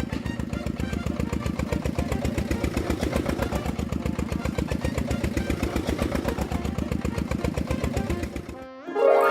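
An engine running steadily with a fast, even chug, stopping about a second before the end. A short rising tone follows.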